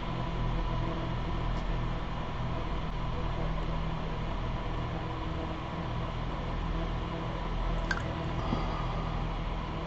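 Small fume-exhaust fan running steadily with a low hum and airy whir.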